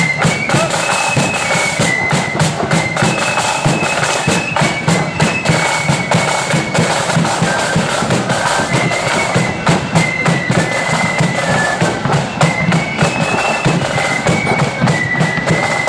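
Marching flute band playing a tune: flutes carry a high stepping melody over dense drumming and a bass drum beat.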